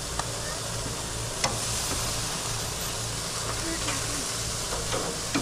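Pork chops sizzling on a gas grill's grate: a steady hiss, with two light clicks in the first second and a half.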